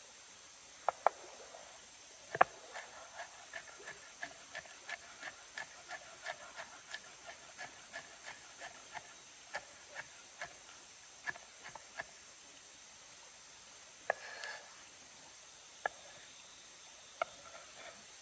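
Kitchen knife chopping small red chilies on a wooden cutting board: a run of quick, even knocks, between two and three a second, for several seconds, then a few scattered single chops. A steady insect hiss lies underneath.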